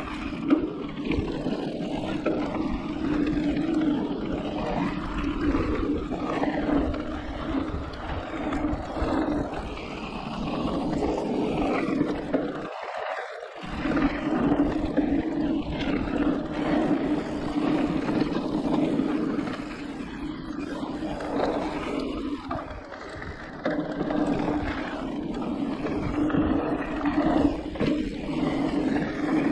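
Riding noise from a Giant Reign E+ electric mountain bike on a dirt flow trail: wind rushing over the camera microphone and tyres rumbling over the ground, with a steady hum from the Yamaha drive motor. The low rumble and hum drop out for about a second partway through.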